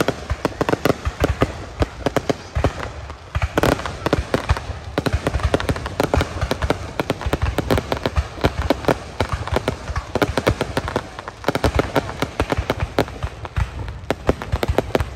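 Aerial fireworks display going off in a dense, continuous barrage of many bangs and crackles a second.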